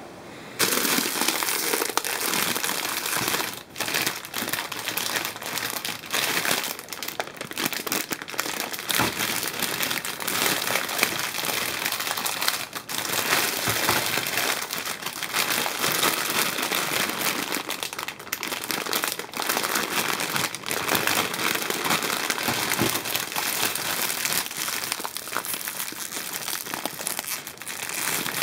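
Plastic and cellophane candy bags full of foil-wrapped chocolate eggs crinkling as hands handle them and work at a twist tie. The crinkling starts suddenly about half a second in and runs on continuously, with dense crackles.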